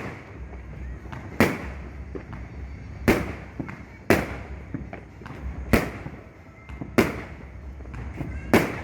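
New Year's fireworks going off: a series of about seven sharp bangs, roughly one every second or so at uneven intervals, each with a short echoing tail.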